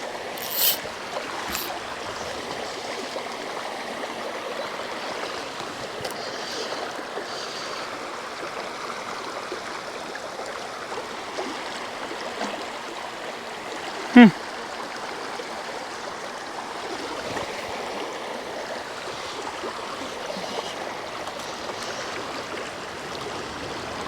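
Mountain river rushing steadily. About 14 s in, a brief, loud sound sweeps sharply downward in pitch, and a short high burst comes near the start.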